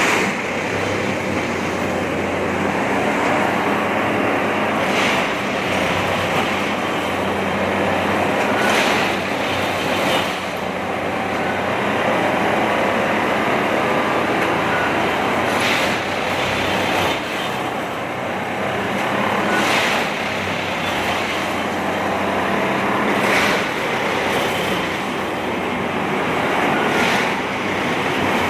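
A steady engine hum of heavy machinery, with sharp knocks every few seconds.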